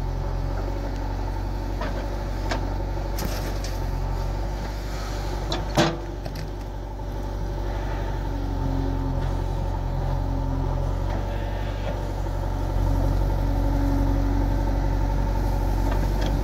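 Diesel engine of a JCB 3DX backhoe loader running steadily as it digs soil and loads a trolley, with one sharp knock about six seconds in. The engine gets louder about thirteen seconds in as the loaded bucket is lifted.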